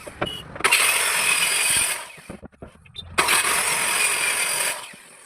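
A power woodworking tool running in two bursts of about a second and a half each, starting and stopping abruptly, with a harsh, hissing high end.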